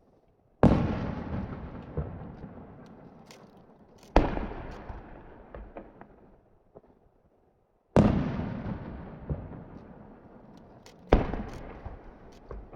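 Aerial firework shells bursting: four loud booms a few seconds apart, each trailing off in a long fading rumble, with a few smaller sharp pops between them.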